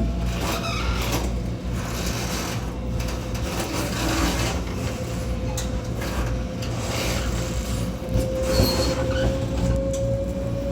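Inside the gangway between two cars of a Taiwan Railways local train running along: a steady low rumble with rattles and knocks from the car connection, and a steady whine that rises slightly in pitch in the last few seconds.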